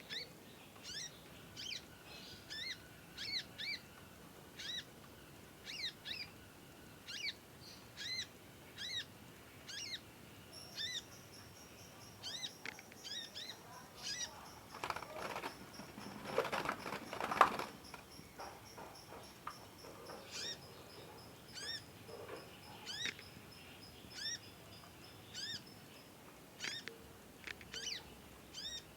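A young cage songbird calling in short, sharp, rising chirps, often in pairs, about once a second. A rustling clatter comes a little past the middle, loudest near its end.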